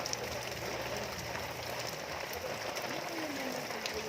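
Steady rain falling on surfaces, an even hiss with scattered drop ticks.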